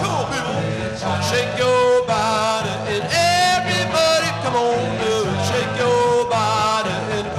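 Rock and roll band playing a song with a steady beat.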